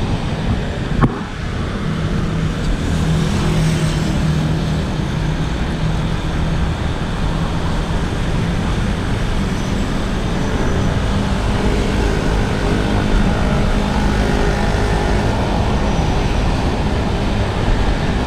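Road traffic: cars and other motor vehicles running and passing, with a steady engine hum under a constant noise. A single sharp click about a second in.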